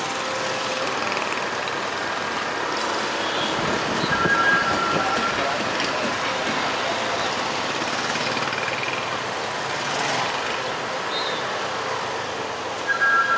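Busy street traffic heard from a moving scooter: steady wind and road noise with engines running. Two short two-tone vehicle horn beeps, one about four seconds in and a louder one near the end.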